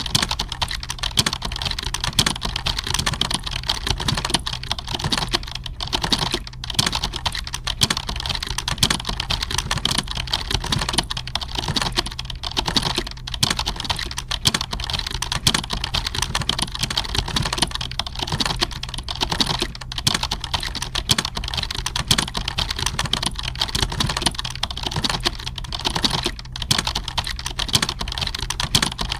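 Computer keyboard typing at a steady, fast pace: a dense, continuous stream of key clicks with no real pauses.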